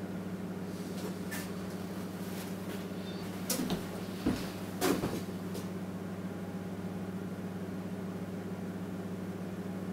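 Steady low electrical hum with a few short knocks and clatters in the middle, the sound of objects being handled and set down on a hard surface.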